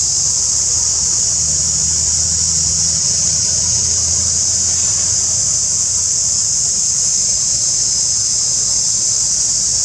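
Steady, high-pitched drone of insects in the forest canopy, unbroken and even throughout, with a low rumble underneath that is strongest in the first half.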